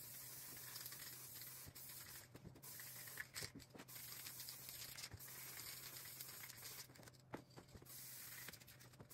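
Aerosol spray can hissing as paint is sprayed onto a truck grille in back-and-forth passes, with a few brief breaks as the nozzle is released between passes.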